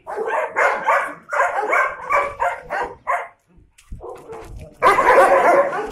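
Dogs barking, a quick series of short barks for about three seconds, a brief lull, then louder barking again near the end.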